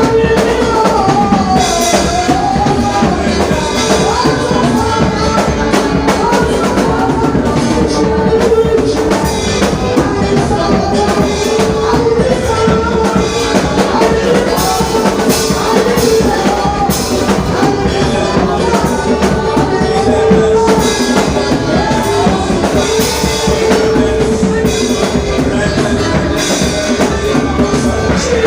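Church praise music: a drum kit plays under a held tone and a wavering sung melody.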